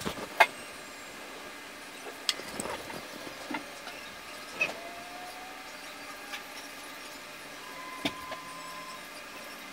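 Quiet room tone with a steady hiss and a few scattered small clicks and taps, the sharpest just after the start; faint thin whistling tones come in during the second half, one slowly rising and one held briefly near the end.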